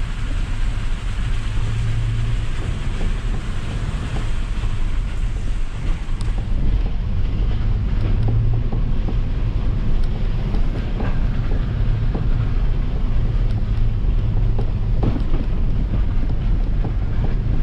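Ram 3500 pickup's diesel engine and road noise heard from inside the cab while driving with a trailer in tow: a steady low hum under a hiss, with a few light rattles.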